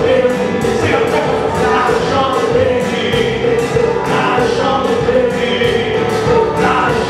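Worship music: a group of voices singing held notes over a band with a steady beat.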